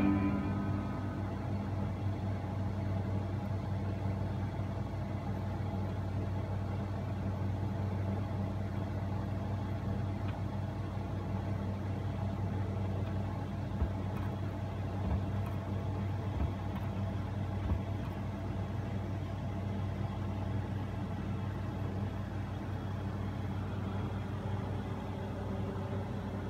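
A stylus riding the run-out groove of a 7-inch single on an Empire Troubador 698 turntable once the song has ended: steady surface noise over a low hum. A faint click repeats about every 1.3 seconds for a few turns of the record, and the last notes of the music die away in the first second.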